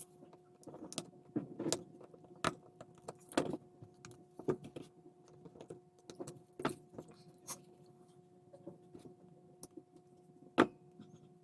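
Irregular light clicks and taps of small plastic model parts and wiring being handled and fitted, over a steady hum.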